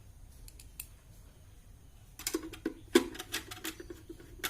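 Quick clicks and rattles of small parts handled by hand as battery clips and connectors are fitted inside a UPS battery backup. They start about two seconds in, and the sharpest click comes about three seconds in.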